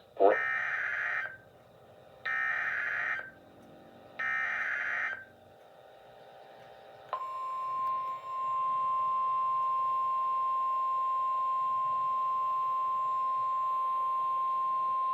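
Emergency Alert System activation: three buzzy one-second bursts of SAME header data tones, about a second apart. About seven seconds in, the National Weather Service's single 1050 Hz alert tone comes on and holds steady.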